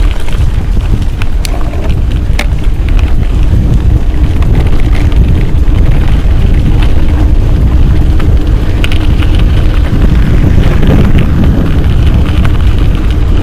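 Mountain bike riding a rough dirt trail: a steady low rumble of wind buffeting the microphone and tyres on dirt, with a few sharp clicks and rattles from the bike over bumps.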